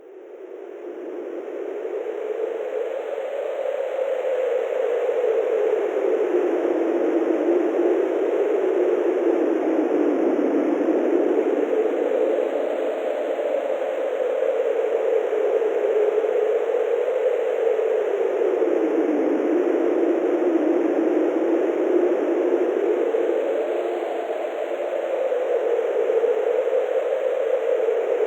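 Wind sound effect: a steady whoosh of blowing wind that fades in from silence over the first few seconds, its pitch slowly rising and falling in gusts every five or six seconds.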